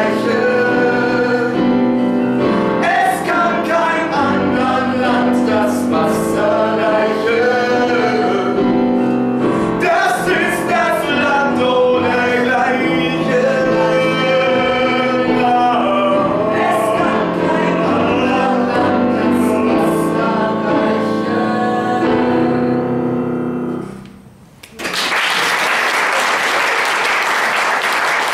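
A man sings a solo in long held notes to piano accompaniment; the song ends about 24 seconds in, and after a brief pause an audience breaks into applause.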